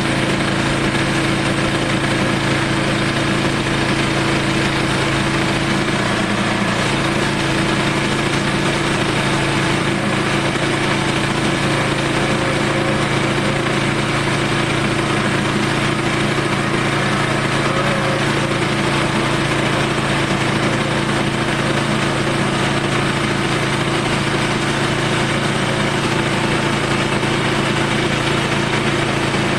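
Portable sawmill's engine running steadily while slabs are cut from a southern rata log.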